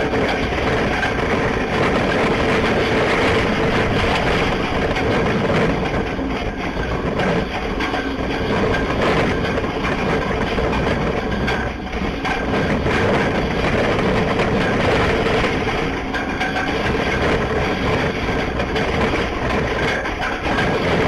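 Loud, steady rush of Hurricane Michael's hurricane-force winds.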